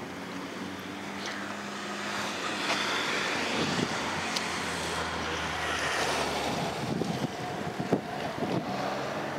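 Street traffic noise, with a car engine's low hum in the first few seconds. Wind buffets the microphone in irregular gusts from about three seconds in.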